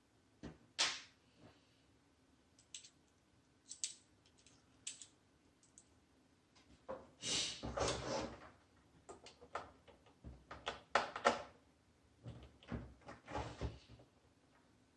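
Handling of a plastic radio-control transmitter and a hex key on a work surface: scattered light clicks and knocks, with two longer stretches of clattering handling noise, one about halfway through and one near the end.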